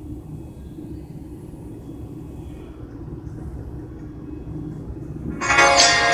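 A low, steady rumble, then music with percussion starts abruptly about five and a half seconds in.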